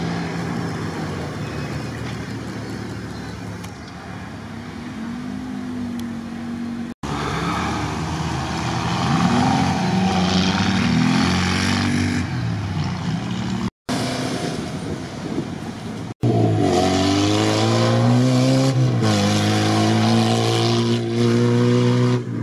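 Off-road 4x4 race engines running hard as the vehicles come past on a dirt track, the engine note climbing and falling with throttle and gear changes, loudest in the last few seconds. The sound cuts out briefly three times.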